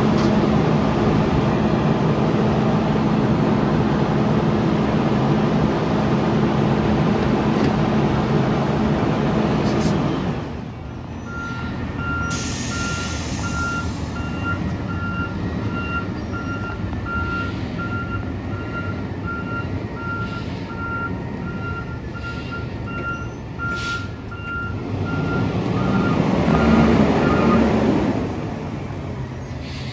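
Autocar ACX front-loader garbage truck with an Amrep body: the engine and hydraulics run loud and steady with a low drone for about ten seconds, then drop away. A brief hiss of air follows, and the reversing alarm beeps in a steady repeating pattern for most of the rest. Near the end the engine revs up louder as the truck pulls away.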